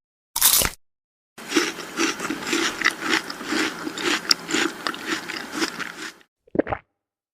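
A string of separate sound effects: a short crunch, a pause, then about five seconds of dense crackling with many sharp clicks, and a short plop near the end.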